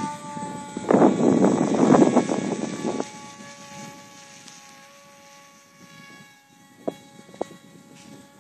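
Electric motor and propeller of a radio-controlled model airplane flying high overhead: a steady whine that slowly fades as it gets farther away. Gusts of wind hit the microphone in the first few seconds, and there are two short clicks near the end.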